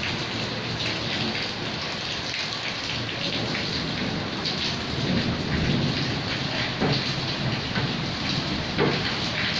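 Steady rain pouring onto a wet street and paved yard, a dense hiss with scattered sharper drips and splashes. A low rumble swells around the middle.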